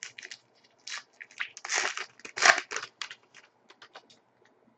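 Hockey trading cards being handled and slid across one another: a run of short dry scrapes and rustles, the two loudest about two and two and a half seconds in.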